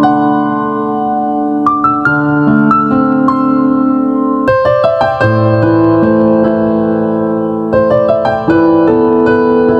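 Outro music: sustained keyboard chords, the chord changing every second or two.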